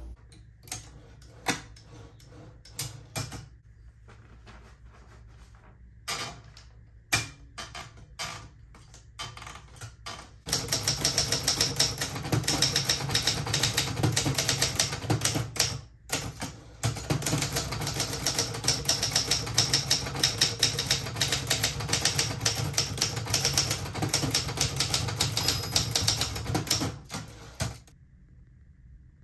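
Manual typewriter, likely the Adler J4: scattered clicks and clunks for about ten seconds, then fast, steady typing with the keys striking in quick succession. The typing pauses briefly about halfway through and stops shortly before the end.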